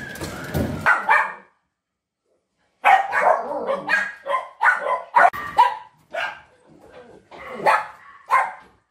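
Dogs barking: a quick run of short, sharp barks starting about three seconds in.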